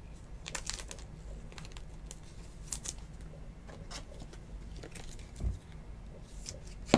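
Light plastic rustles and small clicks as a trading card is slid into a clear soft plastic sleeve and then into a rigid plastic card holder, with a soft knock about five and a half seconds in.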